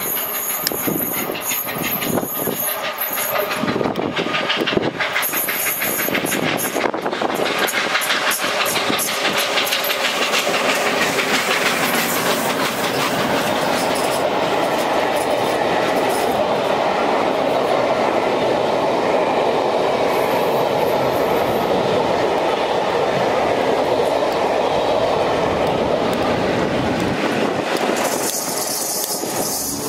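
LNER A3 steam locomotive 60103 Flying Scotsman, a three-cylinder engine, running through at speed. Its exhaust beats come quicker and louder as it nears and passes, about twelve seconds in. After it, its train of coaches goes by for a long stretch, the wheels clattering over the rail joints.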